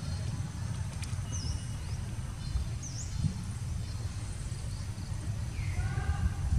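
Steady low outdoor rumble, with a few faint, short, high bird chirps and a brief pitched call just before the end.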